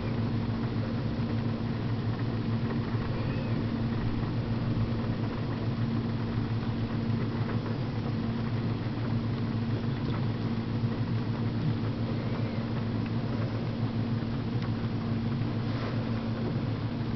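Steady mechanical hum inside a car, with a constant low tone, over an even hiss of heavy rain.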